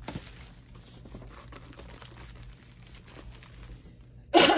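Faint crinkling of the clear plastic wrap around a rolled canvas as it is handled. Near the end comes a short, loud sound that falls in pitch.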